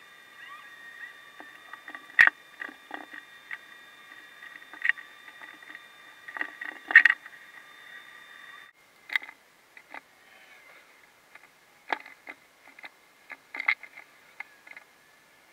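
Sped-up room sound of painting supplies being handled: a scatter of small clicks and knocks, a few of them louder, over a faint steady hum that stops about nine seconds in.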